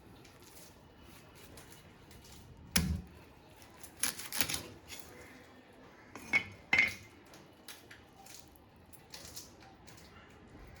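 Fish-cutting blade work with metal and utensil clatter: a single knock about three seconds in, a scraping stretch about a second later, and two quick metallic clinks with a short ring past the six-second mark.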